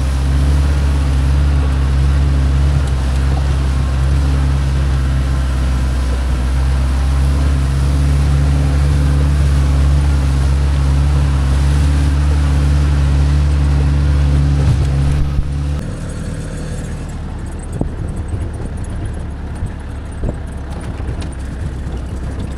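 Off-road 4x4 jeep engine running steadily at a constant pitch. About 16 seconds in it drops to a quieter, rougher rumble with scattered short knocks.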